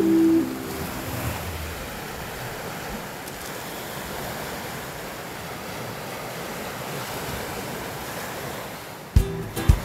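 Small Lake Superior waves washing onto a pebble beach, a steady rushing with some wind on the microphone. Background music fades out at the start and comes back in with drum hits near the end.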